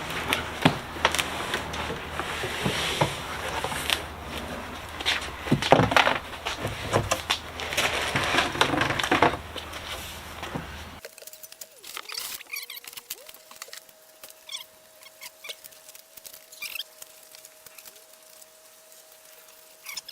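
Cardboard shipping-box packaging rustling, scraping and tearing, with knocks, as an e-bike is pulled out of its box. About halfway through it cuts to a much quieter stretch of faint clicks of parts being handled over a faint steady hum.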